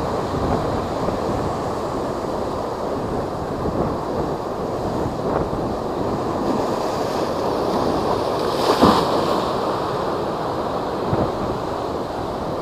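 Heavy typhoon-driven surf washing and breaking, with strong wind buffeting the microphone. One louder crash comes about nine seconds in.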